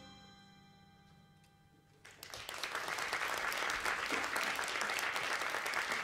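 The last chord of a small acoustic ensemble fades away, then after a brief silence an audience breaks into applause about two seconds in and keeps clapping steadily.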